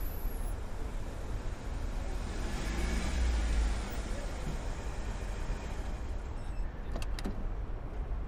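Steady low rumble of a car and street traffic, swelling about three seconds in, with a couple of light clicks near the end.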